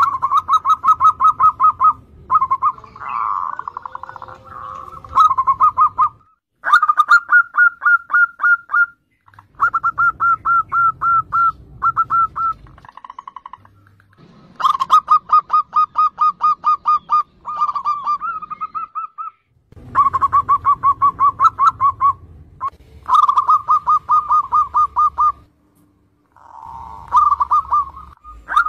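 Zebra dove (perkutut) song: rapid runs of staccato cooing notes, about eight a second, in phrases of one to three seconds with short pauses between.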